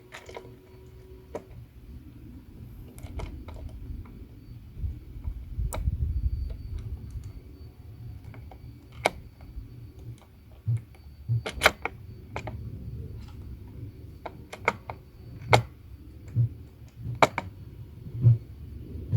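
Irregular sharp clicks and taps from small tools and parts being handled, heard over a steady low rumble.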